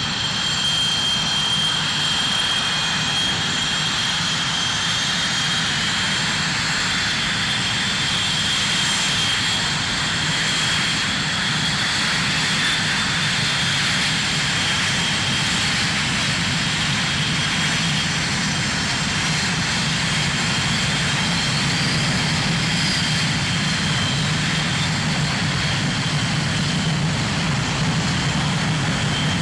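Blue Angels F/A-18 Hornet jet engines running as the jets taxi, a steady high turbine whine over a low rumble. About two-thirds of the way through, a brief whistle rises and falls.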